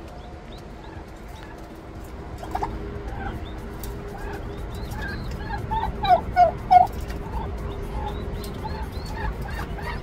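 Turkey poults peeping in quick, repeated short chirps. Three louder, lower calls come close together a little past the middle.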